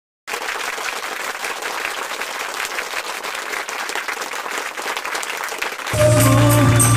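Applause: many hands clapping, cutting in abruptly just after the start. About six seconds in, louder music with singing takes over.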